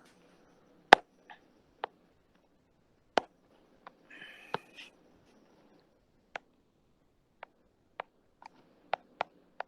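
Sparse, irregular light clicks and taps, about a dozen, with a brief scratchy sound about four seconds in.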